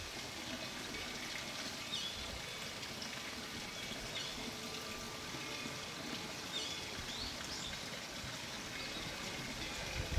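Water flowing steadily, with a few short bird chirps. Faint steady ringing tones sit underneath.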